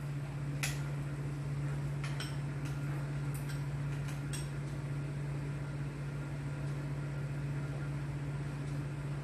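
A steady low hum throughout, with a few light clicks of a metal spoon against a small bowl as food is scooped and tasted.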